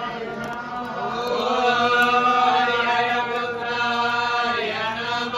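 Several men chanting mantras together in long, held notes that slide between pitches: ritual chanting during a homam fire offering.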